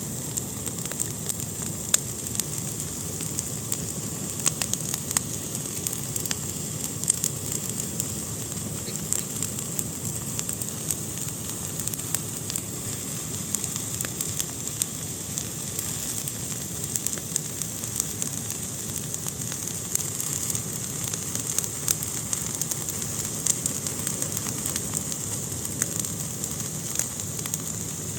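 Fire burning in a fireplace, crackling steadily, with frequent small irregular pops over a constant hiss.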